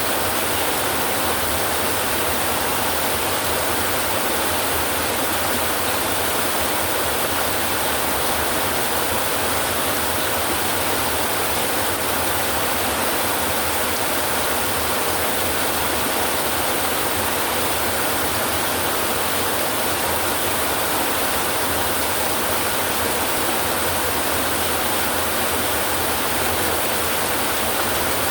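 Heavy rain falling on a tin roof: a steady, even hiss with no breaks or claps.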